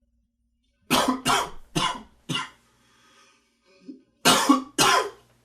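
A man coughing: four quick coughs in a row, a short pause, then two more coughs.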